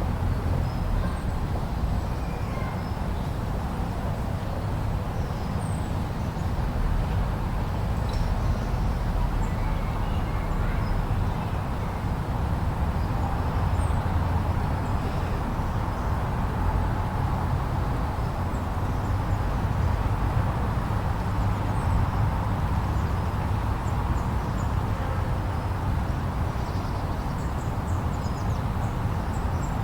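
Steady blizzard wind: an even low rumble with a hiss above it, and faint short high chirps here and there.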